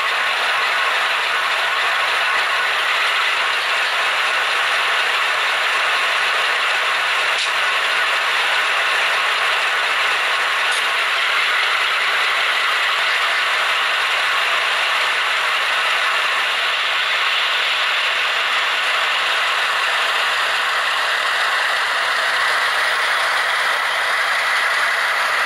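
HO-scale model coal train rolling past close by: a steady, even rattle and clatter of small metal wheels on the track and the cars running over the rails, with a few faint clicks.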